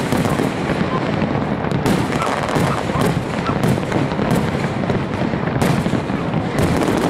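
Large fireworks display: a continuous barrage of many shells bursting at once, the bangs and crackles overlapping without a pause.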